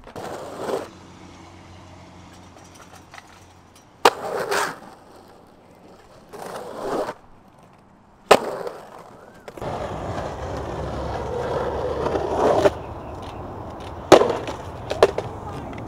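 Skateboard wheels rolling on rough concrete and asphalt in several short runs, the longest near the end. Four sharp clacks of the board striking the ground break in.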